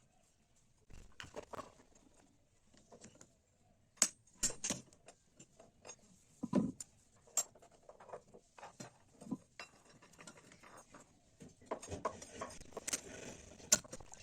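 Small metal objects being handled: scattered light clinks and knocks, with sharper taps about four and seven seconds in, one with a dull thump, and a busier run of small clatter near the end.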